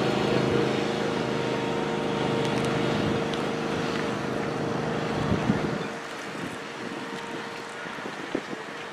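Small utility vehicle's engine running steadily, then fading away about six seconds in.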